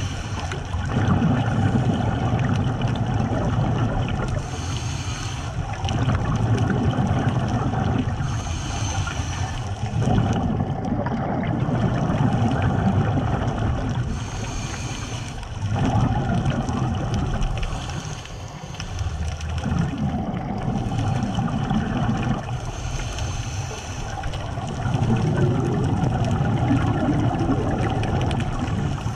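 Scuba diver breathing through a regulator underwater: long stretches of rumbling, gurgling exhaled bubbles alternate with short hissing inhalations, about every four to six seconds.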